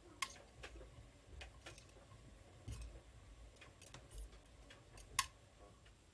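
Scattered light clicks and taps, irregularly spaced, with two sharper clicks: one about a quarter second in and one near the end.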